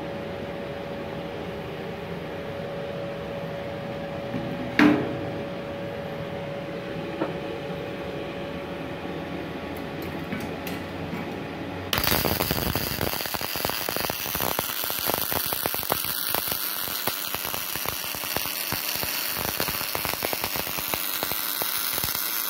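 Steady hum with a single held tone, broken by one sharp click about five seconds in. About twelve seconds in, the CO2 MIG welding arc of a Multipro MIG-MAG 250 NF welder strikes and crackles densely and evenly for about ten seconds, then cuts off.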